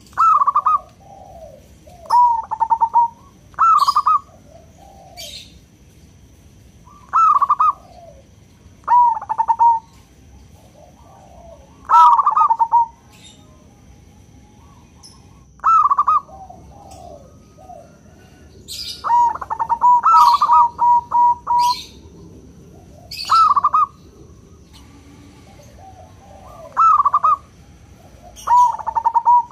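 Zebra dove (perkutut) cooing: short phrases of quick staccato coos repeated every couple of seconds, with one longer run of coos about two-thirds of the way through.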